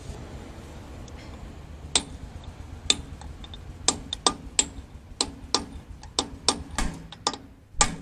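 Hammer tapping on steel: about a dozen sharp metallic strikes with a short ring, at an uneven pace, starting about two seconds in and coming closer together near the end. This is the tab of a lock washer being bent over so the nut cannot back off.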